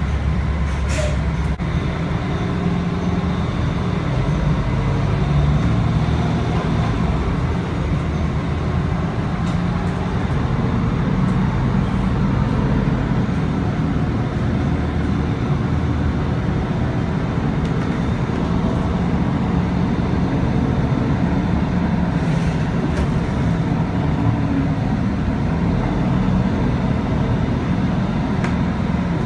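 Transit vehicle running with a steady low rumble.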